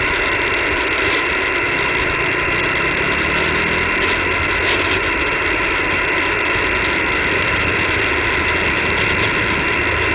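Shortwave receiver hiss and band noise on the 20-metre band, heard through a single-sideband voice filter that cuts it off above about 3 kHz, with a few faint steady tones in it. The channel is open but no station is transmitting.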